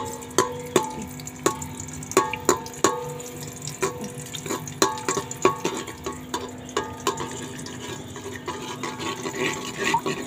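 Metal slotted spoon knocking and scraping against an aluminium pot while stirring, about a dozen irregular knocks, each ringing briefly. Underneath, garlic and green chillies sizzle in hot oil.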